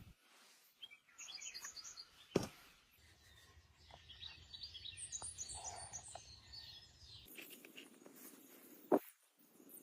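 Small birds chirping in quick repeated high notes, with two sharp knocks, one about two seconds in and another near the end.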